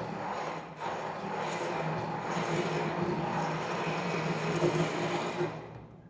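Hand-held stick blender running in a glass jar, whipping olive oil and drain-opener lye solution into soap batter as it thickens. Its hum dips briefly just under a second in and dies away near the end.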